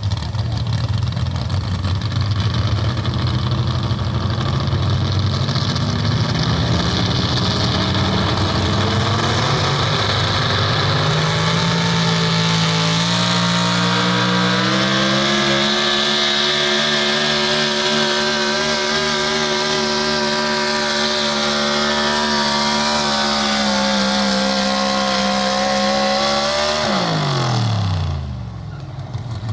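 Pro Stock 4x4 pulling truck's engine, in a square-body Chevrolet pickup, running hard under load as it pulls the sled. The pitch climbs over about ten seconds, holds high with a slight waver, then falls away sharply near the end as the pull finishes.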